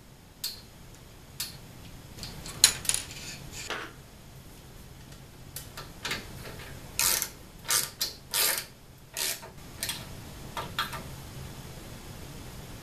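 T-handle hex driver turning a screw into the aluminium frame plate, heard as metal clicking and rattling. A few scattered clicks come first, then a string of short clicking bursts about halfway through, then it falls quiet.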